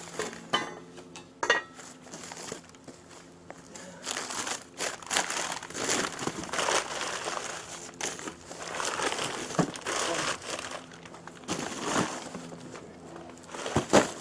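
Crumpled newspaper packing being pulled out of a cardboard box, rustling and crinkling on and off. A sharp knock near the end.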